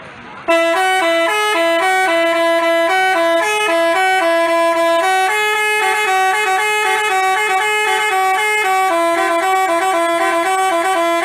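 Telolet basuri musical bus horn playing a tune. Its steady notes start suddenly about half a second in and change pitch every fraction of a second, several sounding together.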